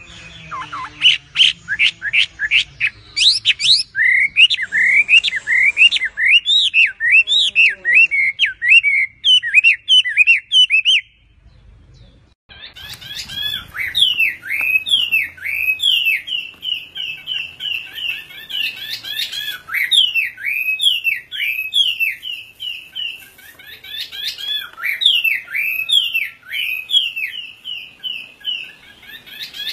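Chinese hwamei (Melodious laughingthrush) singing loudly: fast runs of sweeping whistled notes repeated several times a second. The song breaks off briefly about eleven seconds in, then starts again with repeated slurred phrases.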